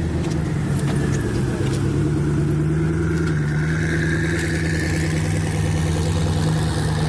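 Koenigsegg Agera's twin-turbo V8 running at low revs as the supercar rolls away slowly, a steady deep drone, with a few faint clicks in the first two seconds.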